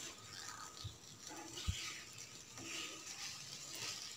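Faint, soft scraping and shuffling of a silicone spatula stirring paneer cubes and capsicum in a nonstick pan, with one soft knock a little before halfway.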